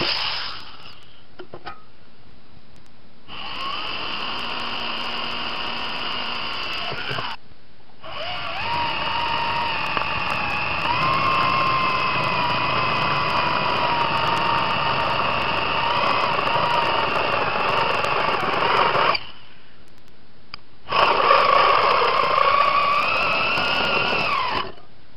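Corded electric drill boring a hole through the centre of a steel-plate sprocket disc. The motor runs in three spells and stops briefly twice between them.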